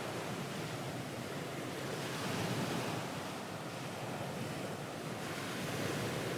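Ocean surf, waves washing steadily as a continuous wash of noise that swells slightly a couple of seconds in.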